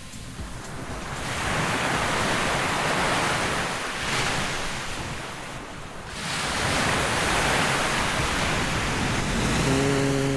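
Surf breaking on a sandy beach, a rushing wash of noise that swells twice, with wind on the microphone.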